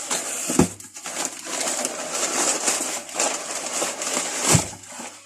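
A parcel being opened by hand: packaging rustling and tearing, with a knock about half a second in and another near the end.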